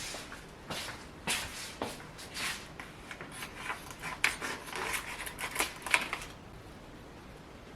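Irregular rustling and clicking of small objects being handled, for about six seconds, then it stops and only a faint steady hiss remains.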